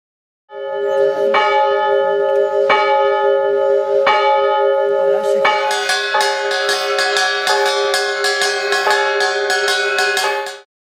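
Large hanging temple bell rung by a chain-pulled clapper, struck about every second and a half with a long ringing hum between strokes. About halfway through, a quicker run of metal strikes joins in over the ringing.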